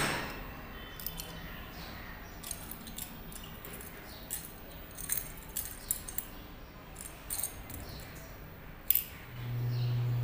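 Light metallic clinks and taps of a metal spatula and small pieces of zinc metal against glass test tubes and a glass dish, scattered through, with a sharper click at the start and another about nine seconds in. A low steady hum comes in briefly near the end.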